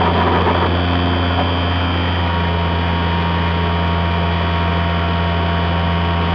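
Electric motor and propeller of an RC foam plane running at steady high throttle, picked up by the onboard camera: a constant drone with a high whine held at one pitch.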